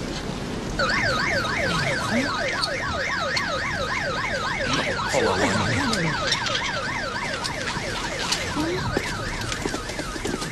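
Emergency vehicle siren in a fast yelp, its pitch rising and falling about four times a second, starting about a second in.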